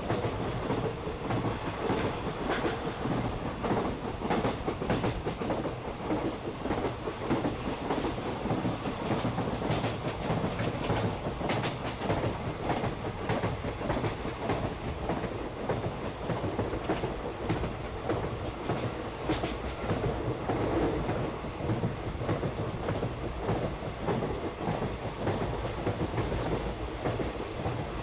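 Toy train rolling along its track, the wheels clattering with a steady rumble and frequent clicks.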